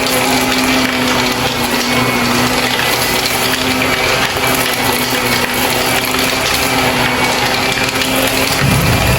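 Shark vacuum cleaner running continuously, a steady motor hum under a dense hiss of suction as it draws up gritty debris. Near the end the hum gives way to a deeper rumble.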